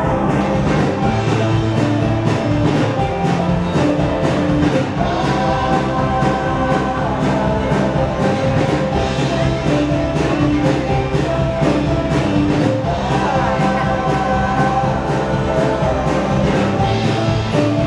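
Live indie-folk band playing: strummed acoustic guitars over a steady drum beat, with a male voice singing, recorded from within the audience.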